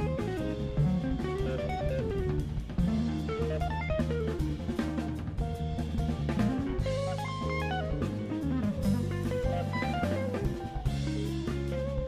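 Background music: guitar over bass and a drum kit with a steady beat.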